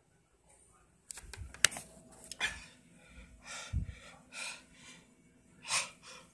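A person breathing hard in a string of short, noisy breaths, four of them stronger than the rest. About a second in come a few sharp knocks from the phone being handled.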